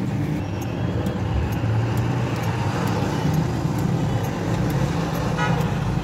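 A motor vehicle engine running steadily with a low rumble, with faint ticks about twice a second and a brief chirp near the end.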